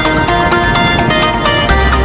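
Electronic dance music with a steady beat and synth notes; a deep bass comes in near the end.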